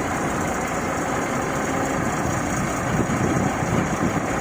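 Heavy vehicle engine running steadily, with a few brief swells near the end.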